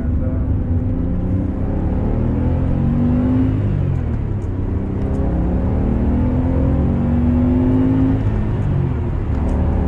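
BMW 850CSi's 5.6-litre S70 V12 heard from inside the cabin, accelerating through the gears of its six-speed manual. The engine note climbs, drops at an upshift about three and a half seconds in, climbs again and drops at a second upshift near the end.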